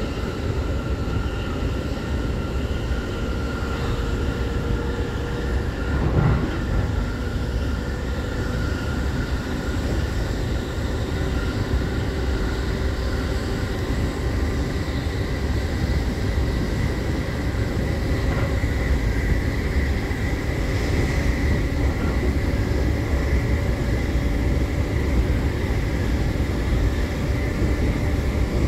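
Running noise inside an E531-series unpowered trailer car (SaHa E531) travelling at speed: a steady rumble of wheels on rail that grows slightly louder, with a single knock about six seconds in.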